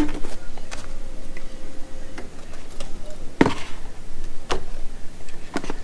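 Handling noise: a few separate sharp knocks and clicks, the loudest about three and a half seconds in, as things are moved around.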